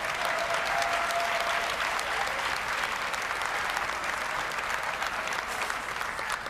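Audience applauding in a large arena, swelling at the start, holding steady for several seconds and thinning out near the end.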